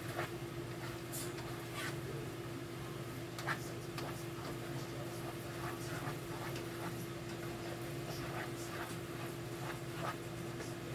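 Light irregular scraping and clicking of a utensil stirring pasta and sauce in a pan, over a steady low hum.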